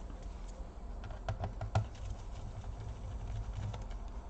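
Scattered light plastic clicks and taps from a laptop being handled and worked on, over a steady low hum.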